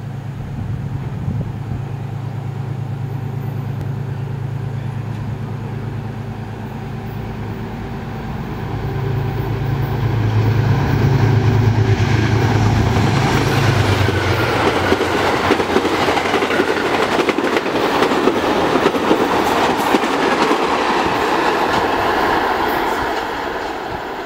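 GE Genesis P32AC-DM diesel-electric locomotive approaching and passing on its diesel engine, a low drone that grows louder through the first half. It gives way to the loud rushing rumble and clatter of the passenger cars' wheels on the rails as the train runs by, easing off slightly near the end.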